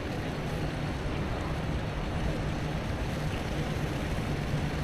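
Steady low rumble of the steamer Alpena under way, mixed with wind noise on the microphone.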